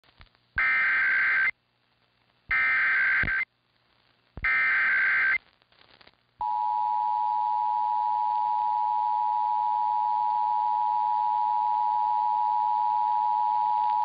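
Emergency Alert System SAME header: three short, buzzy bursts of two-tone data, about a second each, encoding a Required Monthly Test for Louisiana. About six seconds in, the EAS attention signal starts, a steady two-note tone (853 and 960 Hz), heard through AM radio reception with faint hiss behind it.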